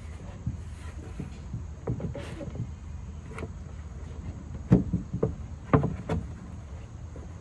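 Parts of a mud kitchen being handled and fitted together: scattered bumps and knocks, with a few sharp, loud knocks between about four and a half and six seconds in.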